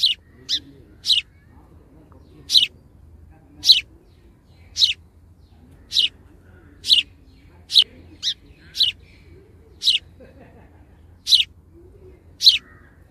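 A bird calling with short, sharp, high chirps, about fourteen of them, repeated roughly once a second in an uneven rhythm.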